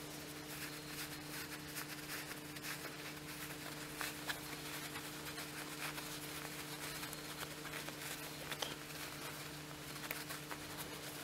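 Faint rustling and small handling noises of cotton fabric and light wadding being stuffed through a gap and smoothed inside a fabric circle by hand, over a steady low electrical hum.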